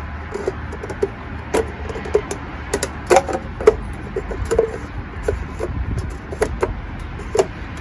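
Irregular light plastic clicks and taps, two or three a second, as the engine's oil filler cap is handled and twisted into place. A steady low hum runs underneath.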